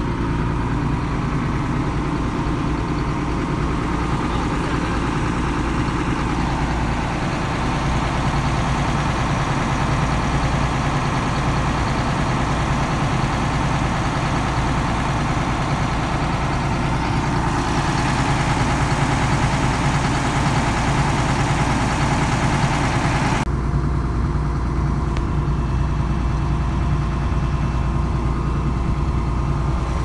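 Excavator diesel engine running steadily. Its sound shifts abruptly to a duller, deeper one about 23 seconds in.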